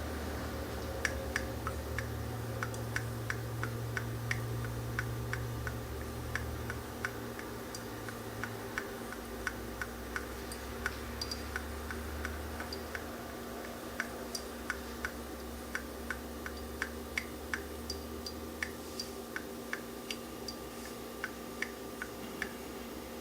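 Coffee dripping into a glass carafe: irregular drips, about two or three a second, over a steady low hum.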